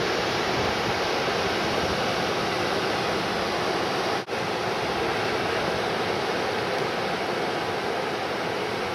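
Steady rush of breaking ocean surf, with a brief dropout about four seconds in.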